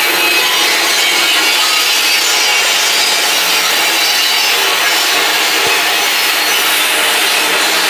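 A loud, steady noise with no clear pitch, unchanged throughout, with one brief low thump near the end.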